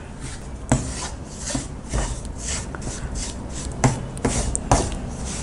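Wooden spatula scraping and stirring lumpy, crumbly gram flour (besan) roasting in ghee in a nonstick pan, in a series of repeated scraping strokes.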